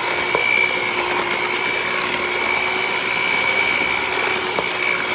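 Electric hand mixer running steadily, its beaters whirring through a thick batter of creamed butter, sugar and eggs, with a steady high whine from the motor. A couple of faint ticks come from the beaters touching the bowl.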